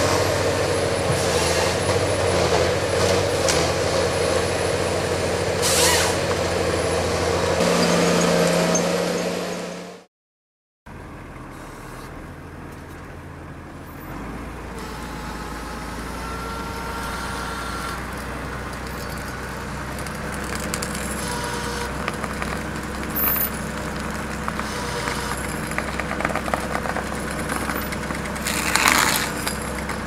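Ponsse forestry harvester's diesel engine running steadily, stepping up in pitch under load about eight seconds in, then cutting off. After a short gap an excavator engine runs steadily while its red stump-splitting blade is driven down into a tree stump, with a brief louder crunch near the end.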